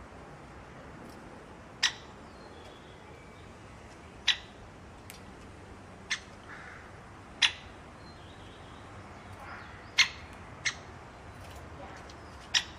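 A bird repeating short, sharp calls, seven in all, about every one to two and a half seconds.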